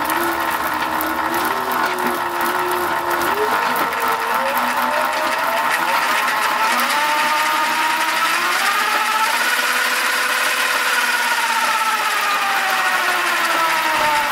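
Electric motorcycle drive motor whining and its chain running as the raised rear wheel spins under light throttle. The whine climbs in pitch through the first half, holds, then falls away near the end as the throttle is eased off. The chain runs clear of the tensioner bracket it had been grinding on, and the drive is quieter now.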